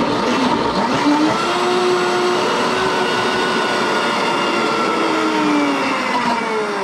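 Blendtec countertop blender running at high speed, churning a thick mix of vegetable pulp and raw eggs. Its motor whine rises in pitch about a second in, holds steady, then starts to fall near the end as the cycle winds down.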